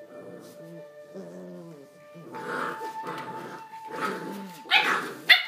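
Seven-week-old Barbet puppies play-fighting, giving puppy vocalisations that grow louder about two seconds in and end in two sharp yips close together near the end.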